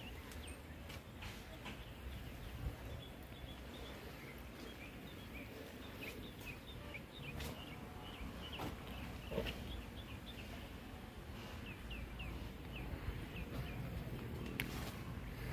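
Many short, high chirps from small birds, repeated throughout over a steady low background rumble, with a couple of sharp clicks.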